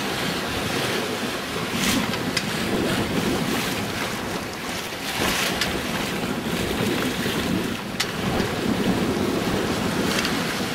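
Wind blowing across the microphone and waves washing along the hull of a small sailboat running in a 10 m/s breeze, a steady rushing with a louder hissing swell about halfway through. A few short sharp clicks come through, one about 2 s in and one about 8 s in.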